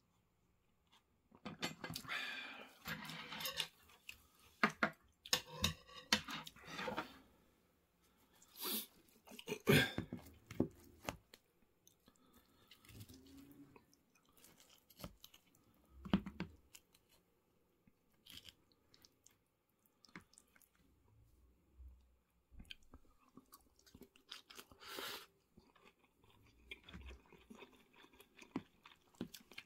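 Close-miked chewing of cheese tonkatsu curry rice, with crunching from the fried breaded cutlet, in irregular bursts with short pauses, busiest in the first third and again about ten seconds in.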